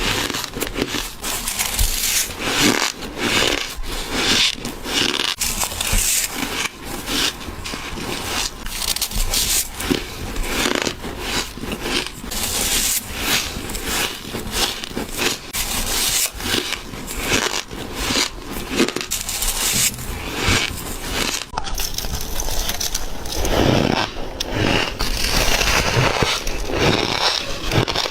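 Close-miked bites into squeaky ice: a rapid run of crisp crunches and squeaky crackles as the ice is bitten and crushed between the teeth, with a cut to another bite sequence about three quarters of the way through.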